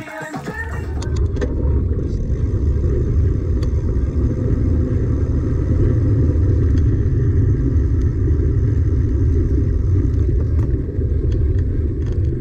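Wind buffeting the microphone of a handlebar-mounted camera on a moving mountain bike, mixed with tyre rolling noise: a loud, steady, low rumble.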